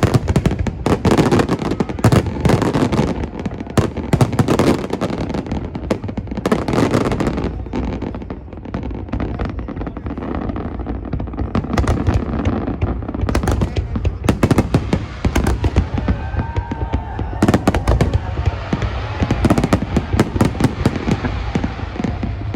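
Fireworks display: rapid bangs and crackling bursts, densest in the first seven seconds, then thinning to scattered bangs over a low rumble.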